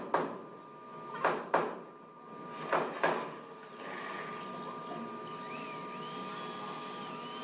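Sharp knocks of wooden ceiling boards being fastened in place: one at the start, then two quick pairs within the first three seconds. After that, an even steady mechanical noise.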